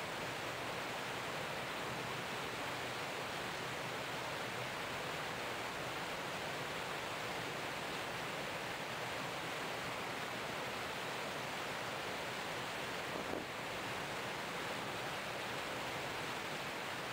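Steady rushing noise aboard a boat moving across a lake: water washing past the hull, mixed with wind.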